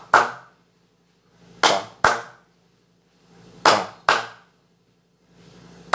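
Bare hands clapping the slow capoeira "palma 1-2": two sharp claps close together, repeated about every two seconds, the clapping pattern used for a slow Angola rhythm.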